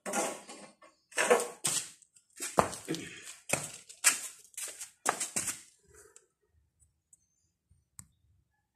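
Red steel channel pieces clanking against each other and the concrete floor as they are set down, a string of sharp metallic clanks with brief ringing over the first six seconds or so.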